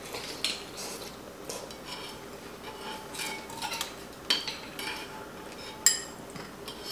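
Metal spoons, a fork and chopsticks clinking and scraping against ceramic bowls as two people eat hot pot, in scattered light taps with one sharper clink about six seconds in.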